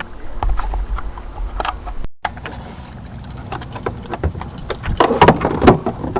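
Light clicking and rattling of small metal and plastic parts: bulbs and bulb holders of a BMW E46 light being handled and fitted. The clicks come more thickly near the end.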